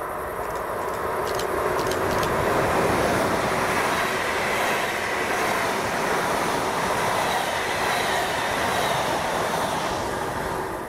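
A train running past: dense rolling wheel-and-rail noise that builds over the first few seconds and then holds steady, with a few sharp clicks of wheels over rail joints early on.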